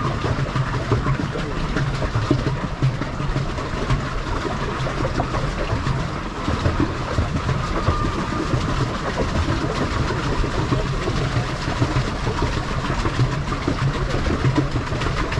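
Pedal boat's paddle wheel churning the water as it is pedalled, a steady splashing with a mechanical clatter and low hum.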